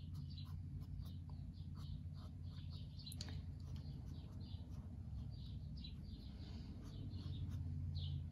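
Felt-tip marker tip squeaking and scratching on sketchbook paper in many short, quick strokes, a few a second, over a low steady hum.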